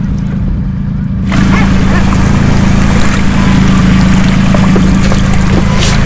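A small fishing boat's engine running steadily under way. About a second in, a loud rush of wind and water noise comes in over it and the engine gets louder.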